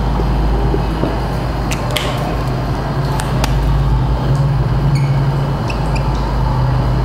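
A steady low hum runs throughout, with faint, short squeaks and taps of a marker writing on a whiteboard.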